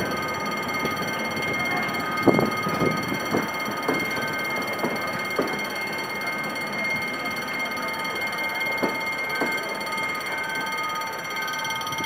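Passenger train coaches rolling slowly past as the train pulls into the station, with a steady high-pitched squeal holding throughout and occasional knocks from the wheels.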